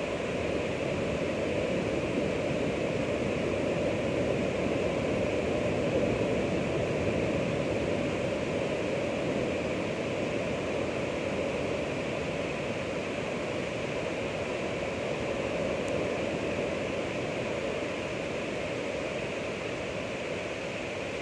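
Ocean waves washing in a steady rush of surf noise, swelling slightly about six seconds in and slowly easing after.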